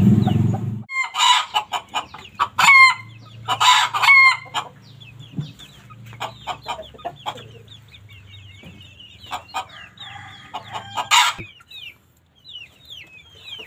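Chickens calling: a few loud, harsh clucking squawks in the first few seconds and another near the end, with faint high chirps in between. A low rumble cuts off within the first second.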